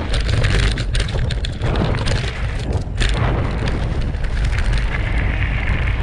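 Mountain bike descending a dirt trail, heard from a handlebar-mounted action camera: wind rumble on the microphone and a run of knocks and rattles as the bike crosses rough ground. After about three seconds this eases into a smoother tyre noise on gravel.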